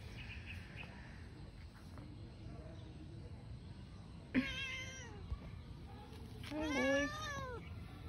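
A domestic cat meowing twice: a short meow with a sharp start about halfway through, then a longer meow near the end that rises and falls in pitch.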